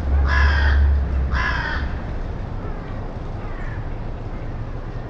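A crow cawing twice, two calls about a second apart. A low rumble underneath dies away about two seconds in.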